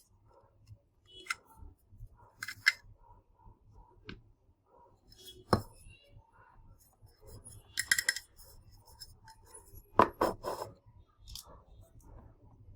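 Small hard parts of a power bank being handled during disassembly: scattered sharp clicks and clinks, some in quick clusters of two or three, as pieces are set down and moved.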